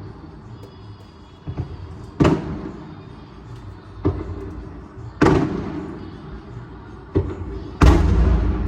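Fireworks going off: a string of bangs about every three seconds, each a smaller crack followed shortly by a louder bang with a long echoing rumble, the loudest near the end.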